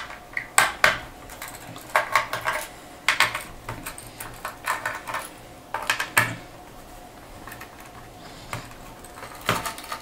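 Small screwdriver and loose screws clicking and tapping against a laptop's plastic underside as the hard-drive screws are backed out: irregular light metallic clicks, a few each second, with a cluster near the end.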